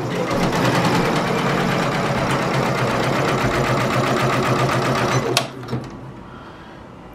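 Janome MB4 four-needle embroidery machine stitching a design onto a shirt: a rapid, even stitching rhythm over a steady motor hum. About five seconds in there is a sharp click, and after it the machine is much quieter.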